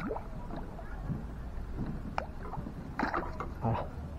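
A hooked herabuna (crucian carp) splashing at the lake surface as it is brought to the landing net: a string of short, irregular splashes and sloshes of water.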